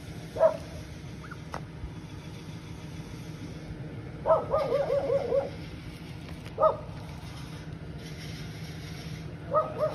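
A kitten mewing in short, high calls: one about half a second in, a quick run of about eight short mews a little after four seconds, another a couple of seconds later, and two close together near the end.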